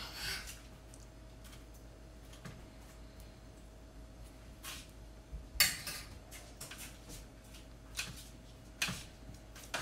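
Scattered clinks and knocks of dishes and utensils being handled on a kitchen counter, the loudest a little over halfway through, over a faint steady hum.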